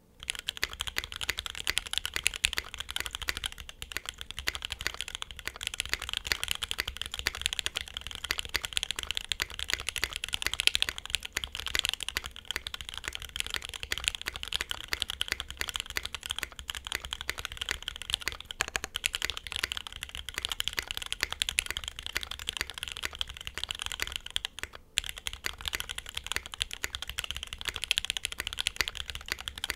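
Continuous typing on a Think 6.5 V2 gasket-mounted mechanical keyboard with lubed Alpaca linear switches, an FR4 plate and GMK keycaps: a dense, steady stream of key clacks, with a brief pause about 25 seconds in.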